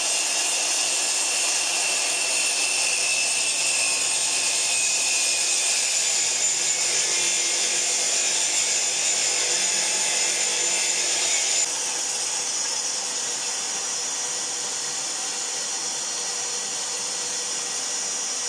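Electric circular saw on a homemade sliding saw table running and cutting through an HDF board lengthwise, a steady high whine, together with a shop vacuum pulling dust from the blade guard. About twelve seconds in the sound drops a little and one of its high tones stops.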